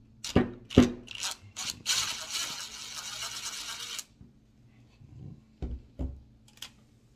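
Craftsman V20 cordless driver running for about two seconds, backing a small screw out of an RC truck's suspension. A few sharp knocks and clicks of the tool and parts being handled come before it, the loudest just under a second in, and more follow near the end.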